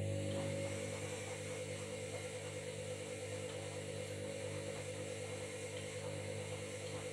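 Washing machine running with a steady motor hum of constant pitch.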